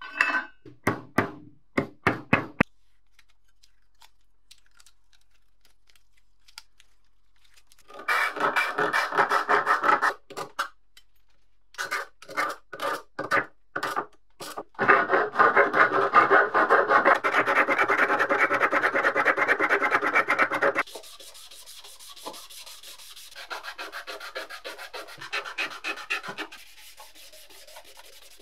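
Rubbing strokes by hand, as in sanding or polishing. A few quick strokes come first, then a pause, then runs of fast back-and-forth rubbing. The longest run lasts about six seconds and is followed by a quieter spell of rubbing near the end.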